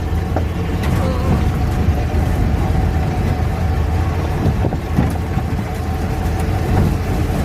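Steyr Puch Haflinger's air-cooled flat-twin engine and drivetrain running steadily while driving: a constant low drone with a thin, steady whine above it.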